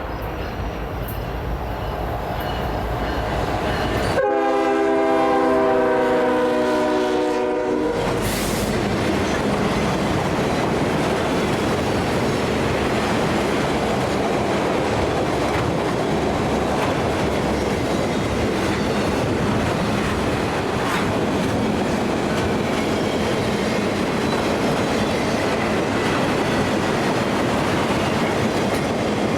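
Freight locomotive horn sounding a loud blast for a grade crossing from about 4 to 8 seconds in. The freight train then rolls past with a steady rumble and the clickety-clack of its cars' wheels over the rail joints.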